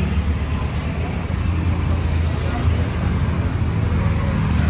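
Street traffic: motorcycles and a car passing, with a steady engine rumble.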